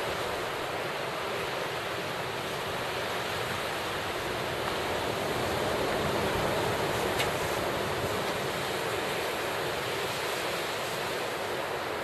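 Small surf breaking and washing up a sandy beach: a steady hiss of white water, swelling slightly about halfway through, with a strong wind blowing. The waves are small, held down by the wind.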